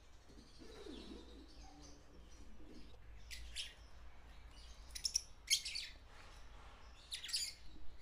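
Lovebirds giving shrill, high chirps in three short bursts, about two seconds apart, the loudest about five seconds in. A faint low murmur comes about a second in.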